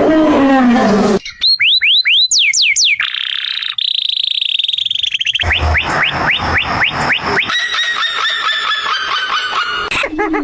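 A run of different animal calls, one after another with abrupt changes: a few quick falling whistled chirps, a steady high whistle, then fast repeated chirping trills.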